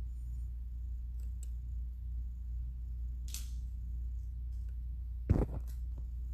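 A large communion host being handled and broken over a metal paten: a few light clicks and a short crackle, then a sharp knock about five seconds in, the loudest sound. A steady low hum runs underneath.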